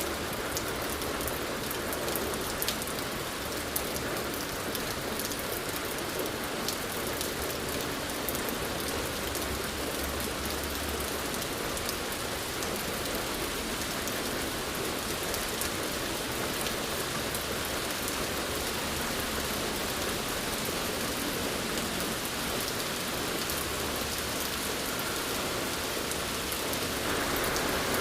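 Steady rain falling on a surface, a dense even patter with scattered individual drop clicks.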